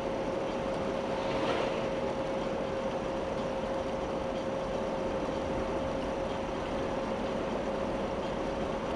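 Steady road and engine noise of a Jeep driving, heard from inside the cabin, with a constant hum. There is a brief swell about a second and a half in.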